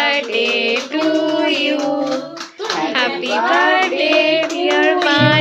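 Singing, likely a birthday song, with hand clapping. Just before the end a low, steady instrumental part comes in.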